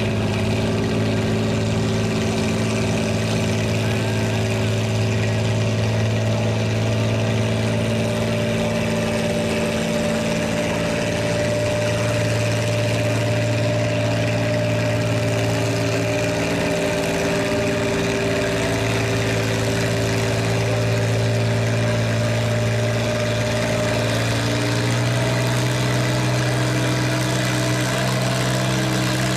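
Farm tractor engine running at a steady speed, its pitch shifting slightly a few times.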